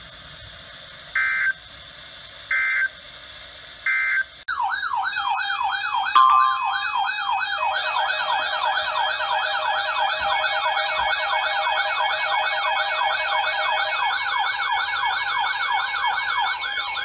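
Three short bursts of EAS data tones, the end-of-message code closing the broadcast warning. These are followed by a loud electronic siren warbling rapidly, about three sweeps a second. A few seconds later a second, higher-pitched warbling siren layers over it.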